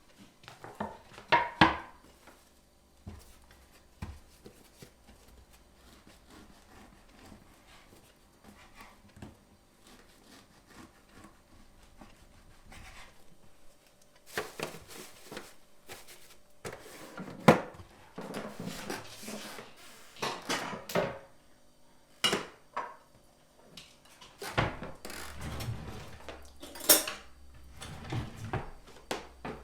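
Kitchen work sounds: wooden knocks and the clatter of pots, dishes and utensils being handled. There are a couple of sharp knocks at the start, a quiet stretch, then busier knocking and scraping from about halfway.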